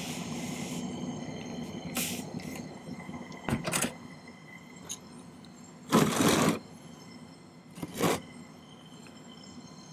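A jeweller's soldering torch flame hisses for about the first second, then stops. Several short knocks and clatters follow about 2, 3.5, 6 and 8 seconds in, over a low steady hum.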